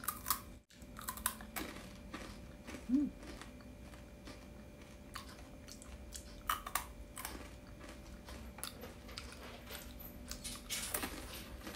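Dried string-bean (sitaw) vegetable crisps being bitten and chewed: crisp crunches coming in irregular clusters.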